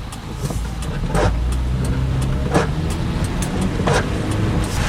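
Car driving, heard from inside the cabin: a steady engine and road rumble, with a short swish repeating at an even pace about every second and a half.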